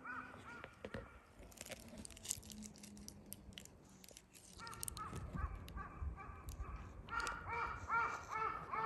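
A crow calling in quick series of short caws: a few at the start, then a long fast run through the second half. Sharp high ticks come in the quieter middle stretch.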